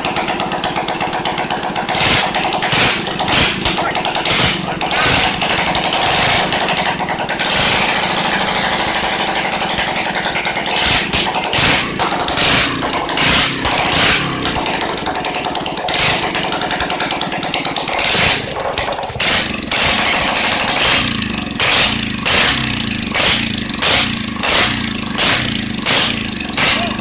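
Yamaha SR400 single-cylinder four-stroke motorcycle engine, fitted with a Suzuki Shogun CDI ignition unit, running and being blipped on the throttle over and over, about once a second for much of the time.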